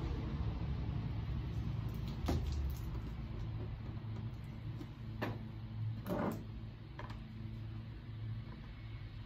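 A few short clicks and knocks from handling a pressure washer and its fittings, over a steady low hum.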